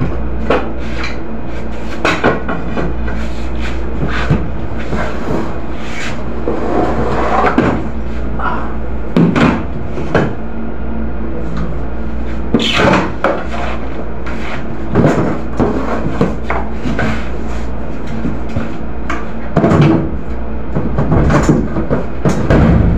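Stored items being handled on wooden storeroom shelves: scattered knocks, clunks and short scrapes as crates and boards are moved, over a steady low hum.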